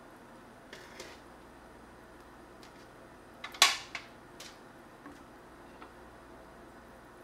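Light taps and scrapes as chopped tomato and chili are pushed off a metal tray into a pot, then a sharp metallic clatter about three and a half seconds in as the tray is set down on the counter, followed by a few small clicks.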